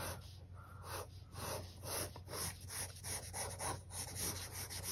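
Pencil scratching on a paper legal pad as a curve is sketched, in a series of short, quiet strokes.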